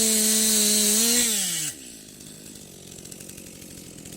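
Chainsaw engine held at high revs with a steady whine, then the throttle is released about a second and a half in: the pitch falls and the engine drops to a quieter, rhythmic idle.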